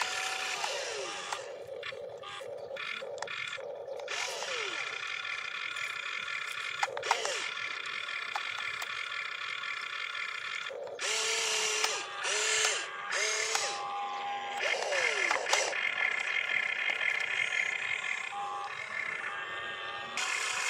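Small electric gear motors of a toy RC excavator whining in short runs as the boom, arm and turntable move, the pitch sliding up and down as each motor starts and stops.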